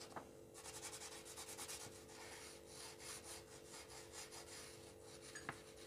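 Faint scratching of a felt-tip marker rubbed back and forth on paper in many short, quick strokes, as lines are thickened and rounded off where they cross.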